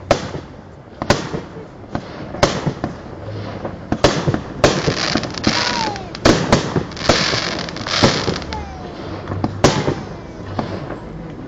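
Fireworks display: aerial shells bursting with sharp bangs about once a second, with crackling between them and a few short falling whistles.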